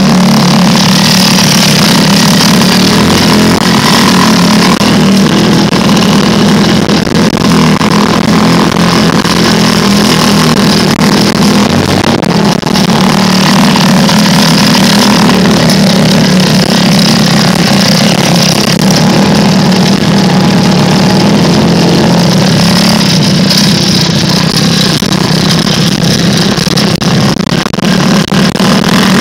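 Small off-road vehicle engine running loud and steady while driving over rough trail, close to the microphone with noise from the ride.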